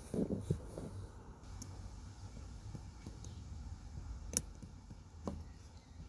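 A few small plastic clicks as a small screwdriver tip works at the locking tab of a removed center-console flood-light housing. The sharpest click comes about four seconds in and another about a second later, over a faint low hum.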